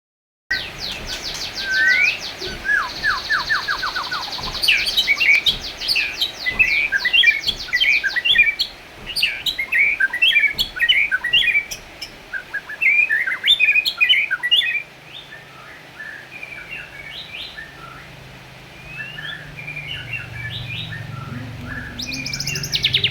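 White-rumped shama of the black-tailed form singing in full, a long run of rapid trills and varied whistled phrases. The song is loud for about the first fifteen seconds and softer after that.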